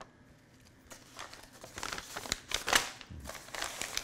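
Deli wrapping paper rustling and crinkling as it is handled, in irregular crackly bursts that start about a second in.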